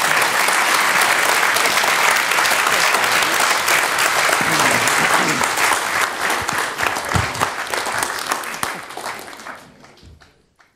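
A large audience applauding steadily, then tapering off and fading out near the end.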